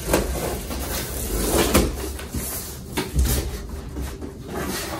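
A cardboard shipping box being slit open with a blade along its tape, then its flaps handled, giving scraping and rustling cardboard with a few knocks about two and three seconds in.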